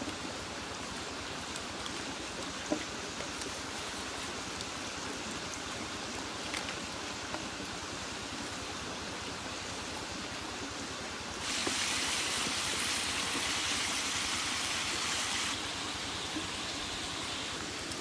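A steady rush of running water, like a stream. It gets louder and brighter for about four seconds past the middle, and a few faint clicks sound over it.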